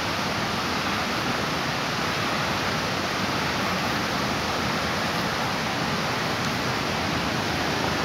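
Steady rushing of a small waterfall: an even, unbroken noise of falling water.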